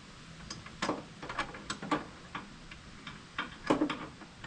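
Irregular sharp metallic clicks and clinks of lawn mower parts being handled while fitting the drive belt onto the pulleys, with a louder cluster of knocks near the end.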